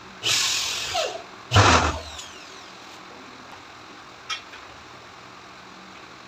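Handheld power tool fastening ceiling panels in two short loud bursts, the first about a second long and the second shorter with a low thud at its start, followed by a faint click.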